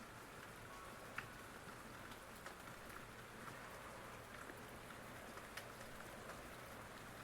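Steady rain falling, with scattered individual drops ticking against a surface.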